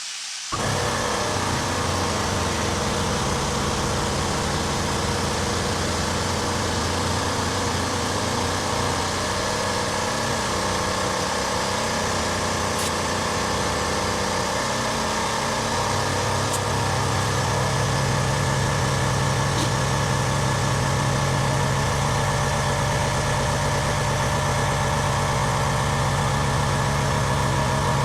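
Air compressor starting up about half a second in and running steadily to inflate a newly mounted tractor tire; its low running note grows stronger from about halfway through.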